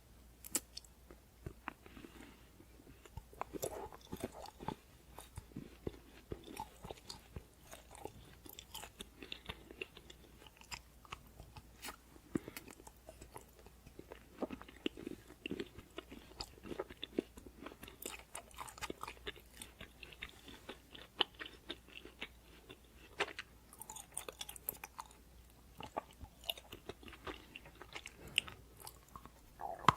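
A person chewing and biting fried chicken, with frequent irregular small crunches and wet chewing sounds.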